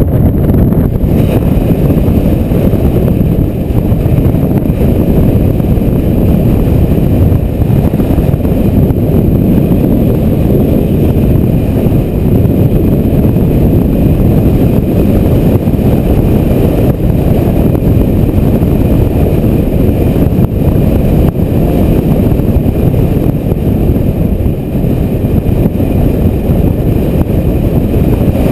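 Loud, steady low rumble of dust-storm wind buffeting the microphone while a motorbike rides across the dry lake bed.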